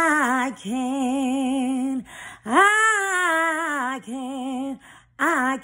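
A woman singing unaccompanied, a slow gospel song drawn out over about five held notes with a wide vibrato, separated by short pauses.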